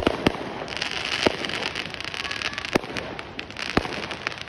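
Fireworks going off: about five sharp bangs over a dense, steady crackling that starts just under a second in.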